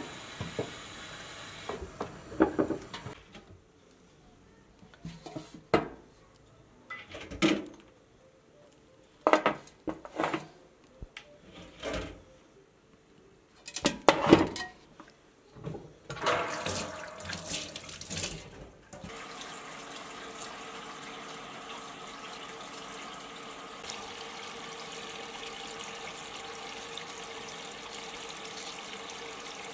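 Kitchen tap running, then a string of irregular knocks and splashes as pieces of cow leg are rubbed and turned by hand in a large metal pot. Near the end of the first two thirds it gives way to a steady rush of tap water filling the pot over the meat.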